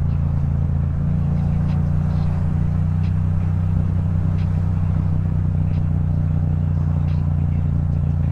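Yamaha MT-07's parallel-twin engine with an Akrapovic exhaust, running steadily at a constant cruising speed with no change in revs.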